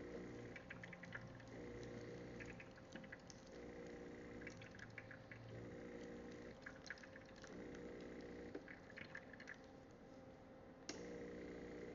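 Espresso machine running its cleaning cycle, faint: the water pump hums in short spells of about a second, roughly every two seconds, while water drips and trickles through. There is a single sharp click near the end.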